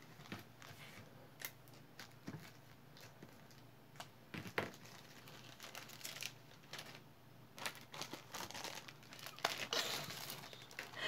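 Faint rustling and scattered light clicks from hands handling and setting down jewelry on a tabletop, busier near the end.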